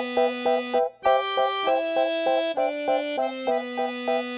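Background instrumental music: a held bass note under a chord pattern pulsing about four times a second, with a brief break about a second in and the bass note changing a few times after it.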